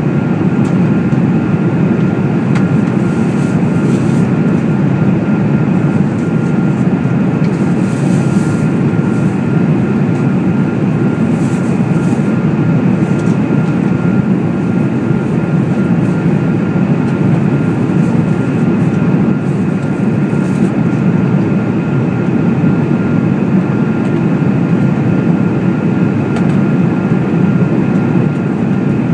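Boeing 787-8 cabin noise in flight: a loud, steady rushing hum of airflow and engines, with a faint steady whine above it.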